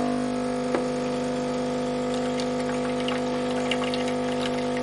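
Miele CM6 coffee machine's pump running with a steady hum during its rinse cycle, with a click about a second in and faint scattered ticking.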